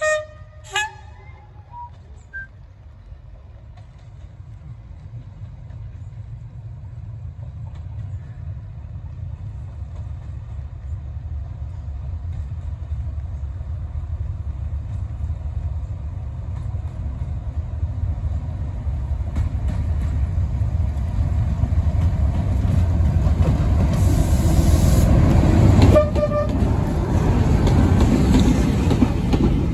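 A Class 37 diesel locomotive, with its English Electric V12 engine, approaches and passes close by hauling coaches. Its low rumble grows steadily louder and peaks over the last few seconds, with a brief horn toot about 26 seconds in. There are a few short honks at the very start.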